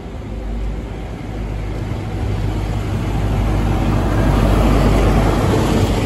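A GWR Castle class High Speed Train (class 43 power car with Mark 3 coaches) approaching and running through the station: a steady low engine hum with wheel and rail noise that grows louder, peaking about five seconds in as the power car and coaches pass close by.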